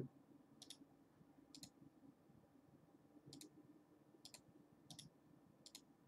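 Near silence with about six faint, separate clicks spread over a few seconds, from someone working a computer.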